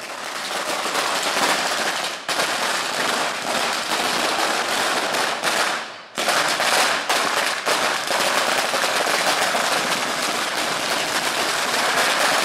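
Firecrackers going off on the ground in a dense, unbroken run of rapid cracking bangs. There is a brief break about six seconds in, then the rapid bangs resume.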